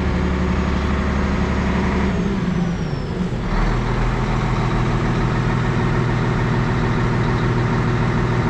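Volvo EC360B excavator's D12D six-cylinder diesel engine running steadily. About two seconds in its note falls and the level dips briefly, then it settles back into a steady lower-pitched run.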